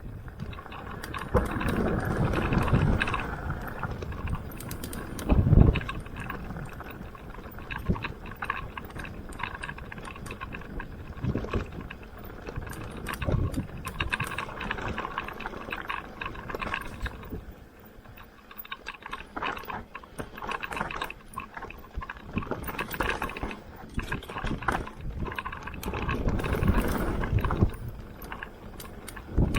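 Mountain bike riding down a dirt trail: rough tyre noise with the chain and frame rattling and clicking, and a few heavier thumps as the bike lands over bumps, loudest about five seconds in.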